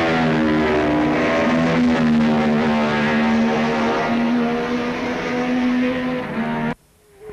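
Racing motorcycle engines running hard at high revs, several engine notes at once, holding a steady pitch; the sound cuts off abruptly near the end.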